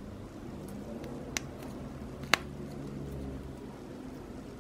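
Soft rubber stress ball being stretched and squeezed by hand, with two sharp snaps about a second apart, the second louder.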